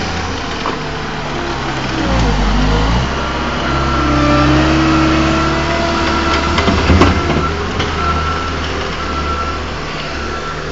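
Caterpillar 287B compact track loader's diesel engine working under changing load: it drops in speed and picks up again about two seconds in, with a whine in the middle and a metallic clank about seven seconds in. A reversing alarm beeps steadily through the second half.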